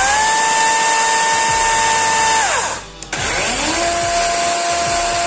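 McCulloch Li40CS 40V battery chainsaw revved with no load, twice. Its motor whine rises to a steady high pitch and winds down after about two seconds. It then spools up again and holds at a slightly lower pitch.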